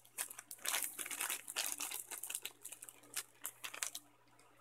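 Crinkling, rustling handling noise as marshmallows are grabbed and pushed into mouths: a fast, irregular patter of small crackles that stops about four seconds in.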